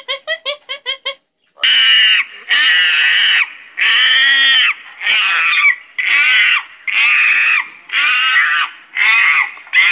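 A primate calling: a quick run of short high calls, then after a brief pause a string of about eight loud, screechy screams, each just under a second long, about one a second.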